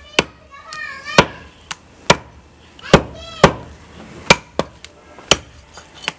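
Cleaver chopping goat meat on a wooden tree-stump chopping block: about a dozen sharp, uneven chops in six seconds.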